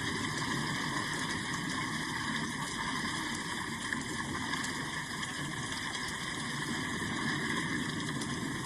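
Steady rain falling, an even continuous hiss with no single drops or gaps standing out.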